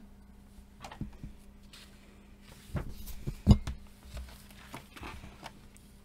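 Pages of a paperback coloring book being turned and smoothed flat by hand: soft paper rustles and light taps, with one sharper thump about three and a half seconds in.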